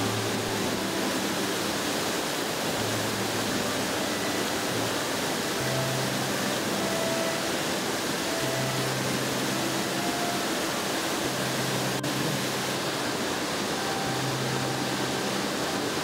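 River cascading over rocks at the foot of waterfalls: a steady, dense rush of white water.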